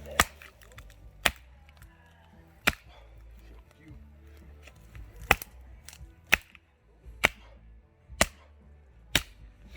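Chopping into a dead tree for firewood: eight sharp, cracking blows, mostly about a second apart, with a longer pause after the third.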